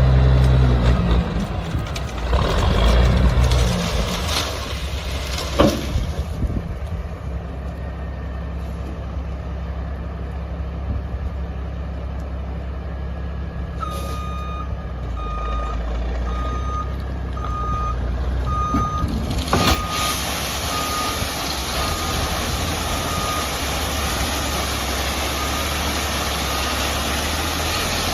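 Heavy dump truck's engine running, with its reversing alarm beeping steadily about once a second from about halfway through. There is a single sharp knock a few seconds after the beeping starts.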